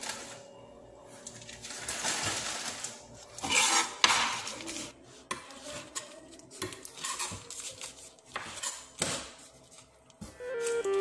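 Kitchen knife cutting raw chicken on a cutting board: irregular knocks of the blade on the board and scraping, with the loudest sharp knock about four seconds in.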